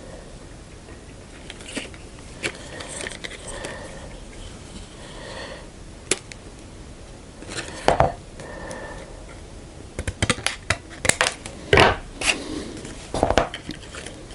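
Thin clear plastic blister film being cut and handled, with crinkling and scattered sharp clicks and snips, which come thickest near the end.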